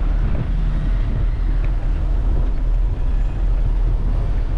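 Steady low rumble of wind buffeting the microphone of a moving bicycle, over the even noise of city street traffic.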